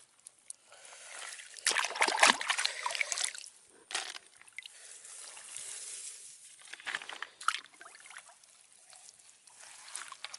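Water sloshing and trickling in irregular bursts, with small splashes and clicks, as of hands or objects moving through shallow water; the loudest stretch comes about two seconds in.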